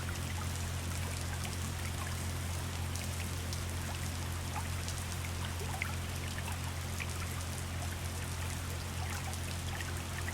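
River water flowing and trickling, with many small droplet splashes throughout, over a soft steady low drone of relaxation music.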